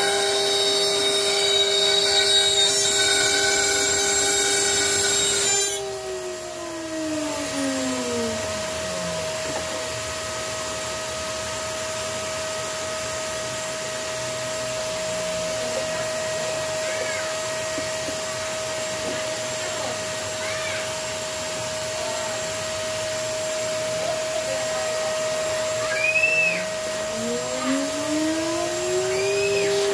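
A wood CNC router's spindle runs with a steady whine while a vacuum hose sucks chips from the cut with a loud hiss. The vacuum switches off about six seconds in and its motor winds down in pitch. Near the end it starts again, rising back up to speed.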